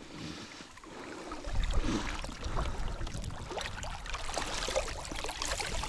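River water flowing and lapping against the side of an inflatable boat, with a low rumble joining about a second and a half in and a few faint knocks.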